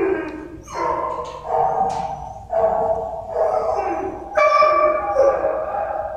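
Several shelter dogs in their kennel runs howling and barking, long pitched cries starting one after another about every second and overlapping.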